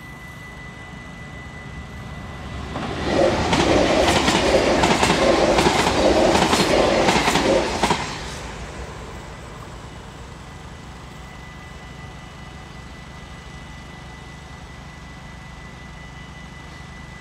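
A train passing the level crossing, loud for about five seconds with a regular clatter of wheels over rail joints, building up about two seconds in and fading away after about eight seconds.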